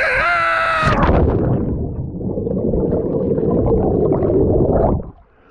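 A man's drawn-out wail, held for about a second with slightly falling pitch, then about four seconds of loud, rough, gurgling noise that stops suddenly near the end.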